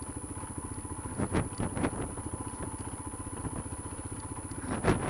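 Royal Enfield Himalayan's 411 cc single-cylinder engine running at low revs as the motorcycle rolls slowly over a rocky dirt road, its firing pulses steady. A few short knocks, about a second and a half in and again near the end, as the bike jolts over stones.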